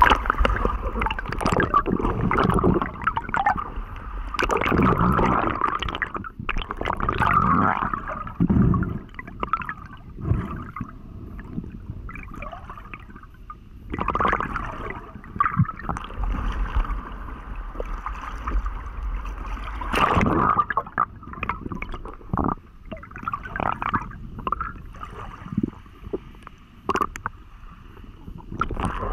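Muffled underwater gurgling and water moving against the camera housing during a freediving dive, rising and falling unevenly with a few sharp knocks.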